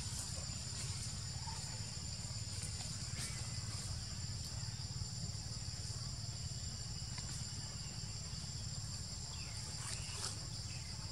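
Insects droning steadily in the forest: an even high-pitched buzz with a thin whine above it, over a low rumble.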